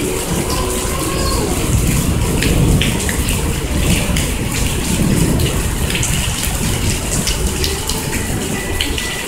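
Heavy rain pouring down, a steady rush of water dotted with many small drop splashes.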